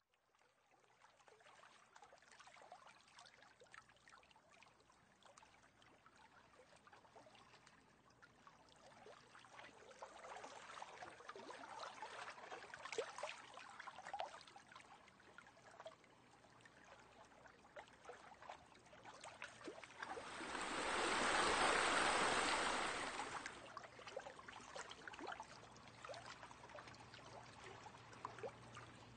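Running, trickling water with many small splashes, fading in at the start, and one louder rushing swell that lasts about three seconds, about twenty seconds in.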